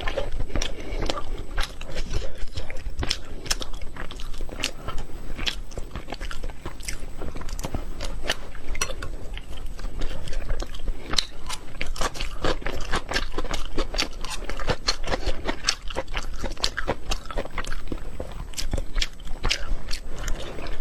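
Close-miked eating: a person biting and chewing braised anglerfish maw, with many quick, irregular wet clicks and crunches. The maw is very chewy.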